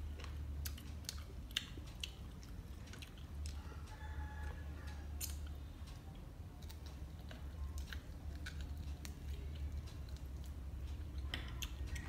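A person chewing and biting chewy stewed snake meat held in her hands, with many small irregular wet mouth clicks. A steady low hum runs underneath.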